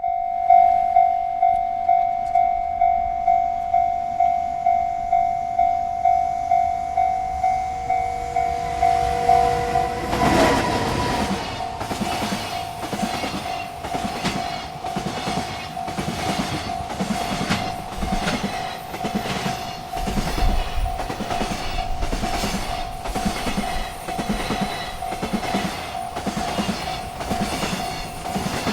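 Railroad crossing bell ringing steadily, about two strikes a second. About ten seconds in, a freight train arrives and passes through the crossing under the bell: rumbling, with rhythmic clickety-clack from the wheels over the rail joints.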